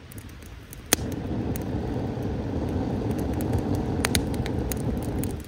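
Air being blown steadily into a small campfire to fan it up, a low gusty rush that stops briefly and starts again about a second in, with sharp crackles and pops from the burning wood, the loudest a single pop as the blowing resumes.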